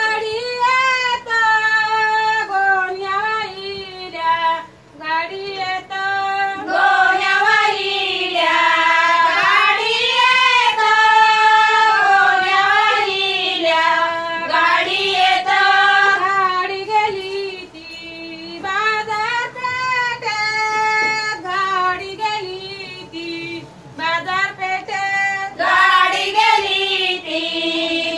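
Women's voices singing a Malvani fugadi folk song in phrases, with short breaks between lines.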